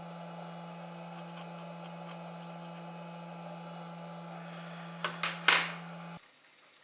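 A steady electrical hum with several overtones that cuts off suddenly near the end. Just before it stops come a few short, sharp noises.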